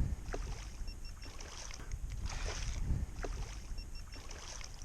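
Wind rumbling on the microphone over water noise around a kayak, with a few light knocks. A faint high triple pip comes twice, about three seconds apart.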